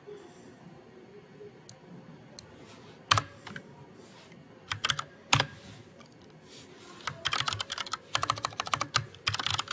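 Typing on a computer keyboard: a few separate key presses, then a quick run of keystrokes from about seven seconds in.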